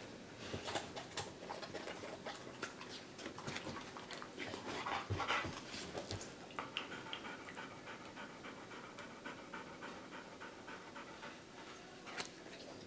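Golden retriever panting, with scattered short clicks through the first half.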